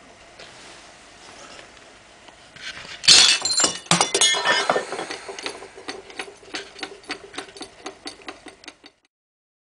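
White porcelain jug falling and smashing on a table top about three seconds in: a loud crash, then shards clinking, followed by a run of clinks that come quicker and fainter as a piece settles.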